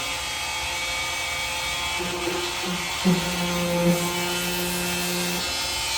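Craftsman CMEW400 oscillating multi-tool buzzing steadily as its blade cuts through soft material. A low steady hum joins from about two seconds in until past five seconds.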